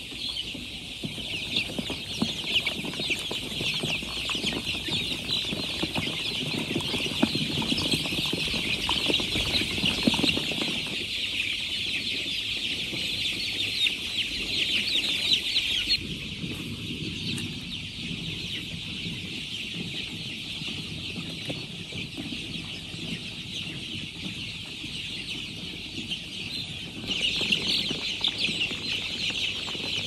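A flock of young chicks peeping continuously: a dense, high-pitched chorus of many overlapping calls. Over roughly the first ten seconds a lower rustling runs under it. The chorus dips a little about halfway through and swells again near the end.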